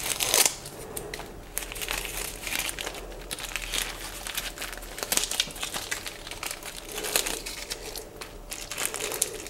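Packaging crinkling and crumpling in the hands as a well-taped parcel is handled and worked open, with irregular crackles throughout, loudest at the very start.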